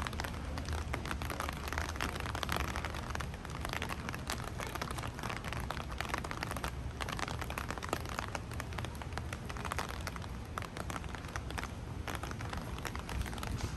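Steady rain, a dense crackling patter of close drops over a low rumble.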